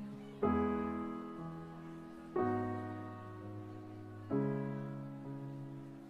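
Slow solo piano intro: three chords, one struck about every two seconds and left to ring and fade.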